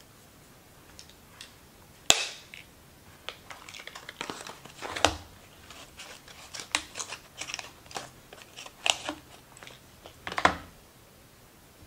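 Scattered clicks, taps and rustles of make-up cases and a brush being handled and set down on a table, with one sharp click about two seconds in, the loudest.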